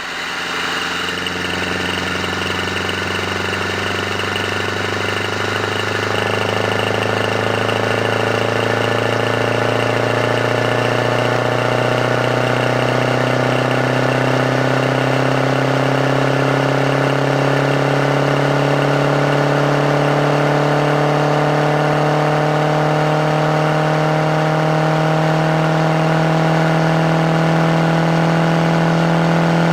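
Carbureted engine running steadily, its pitch rising slowly and smoothly as the engine speed creeps up, getting a little louder over the first few seconds.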